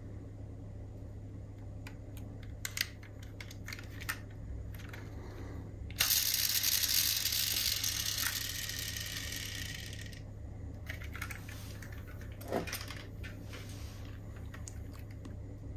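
Light clicks and taps of a metal diecast model car being handled, with a hiss that starts suddenly about six seconds in and fades away over about four seconds, over a low steady hum.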